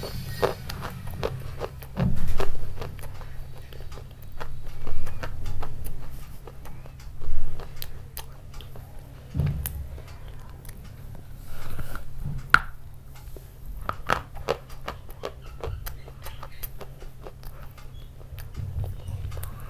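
Close-miked eating: biting and chewing with many sharp, wet clicks, a few louder bursts, over a steady low hum.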